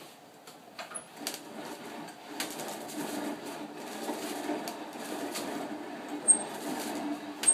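Hand-crank sandbox deformation rig being cranked: a steady scraping rumble of the crank mechanism and the wall pushing through the sand, building from about two seconds in, with scattered clicks and a few very short high squeaks, the sharpest about six seconds in.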